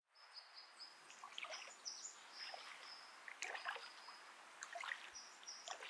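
Faint water ambience: scattered light splashes and trickling, with short high whistled bird notes stepping between several pitches.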